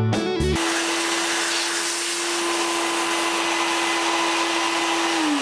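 Milling machine spindle motor running with a steady hum and hiss, then switched off near the end, its pitch starting to fall as it spins down.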